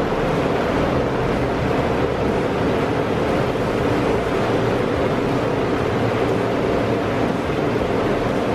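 Toyota 4.0-litre V6 (1GR-FE) running steadily just after being started, freshly filled with new oil and left to run for a few seconds to build oil pressure and fill the new oil filter.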